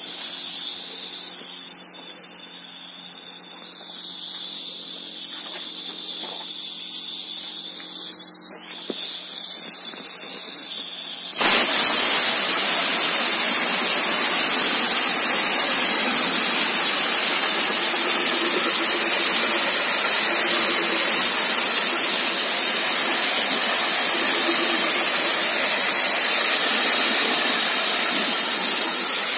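A steady mechanical hum made of several held tones. About eleven seconds in, a sandblasting gun fed by a 50-litre air compressor opens up with a loud, steady hiss of air and abrasive that goes on unbroken.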